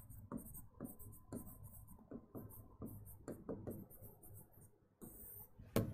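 Stylus tapping and scratching on an interactive display screen while handwriting a couple of words: a series of faint short strokes, with one sharper tap near the end.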